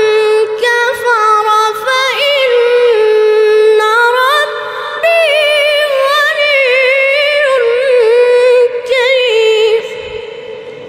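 A male Quran reciter chanting one long, ornamented phrase in a very high register, the voice sliding and trilling between held notes. The phrase ends about ten seconds in and the sound fades away.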